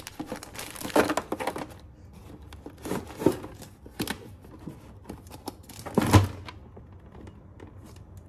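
Plastic snack packets and sachets crinkling and rustling as they are handled and dropped into a plastic drawer organiser, with light plastic clicks. About six seconds in, the plastic drawer is pushed shut with a loud knock and a low thud.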